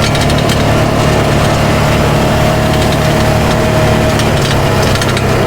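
Polaris RZR 570 side-by-side's single-cylinder engine running steadily, with a dense crackle of twigs and brush scraping and snapping against the vehicle on a narrow track.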